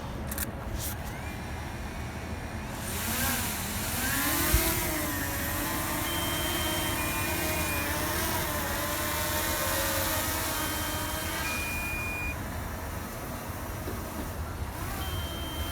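Quadcopter drone's propellers whining: the pitch rises about three to five seconds in, then holds fairly steady over a low rumble. A few short high beeps sound now and then.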